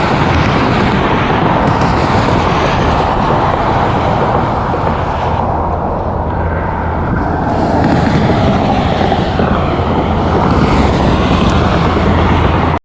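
Steady low engine rumble mixed with wind noise on the microphone.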